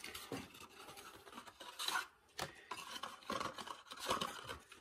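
Rustling and scraping of hands in plastic gloves handling a small cardboard box and packaging as a new oil-pump strainer is unpacked, with several light clicks and knocks.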